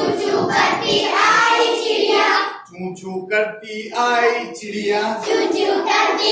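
A group singing a Hindi children's action song together in unison, with a short pause between lines about two and a half seconds in.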